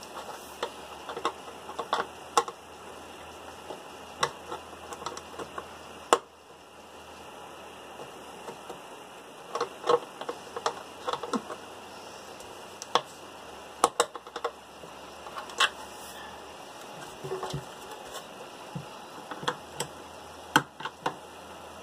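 Irregular clicks and knocks of a metal pry tool working plastic ball-and-socket mounts off a fog light housing, with a sharper snap about six seconds in.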